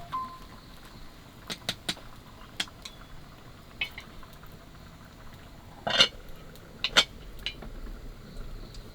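A series of scattered sharp clicks and knocks, as of hard objects being handled and set down. The two loudest knocks come about six and seven seconds in.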